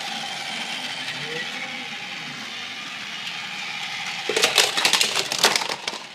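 Battery-powered LEGO Duplo toy train running along plastic track with a steady motor hum. About four seconds in there is a burst of clattering plastic as the train comes off the track and its pieces hit the hardwood floor.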